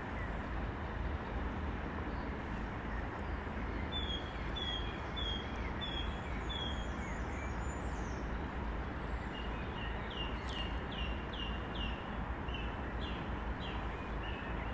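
A small songbird calls over a steady rushing noise: first a run of five short, high, evenly spaced notes, then, later on, a quicker run of falling notes.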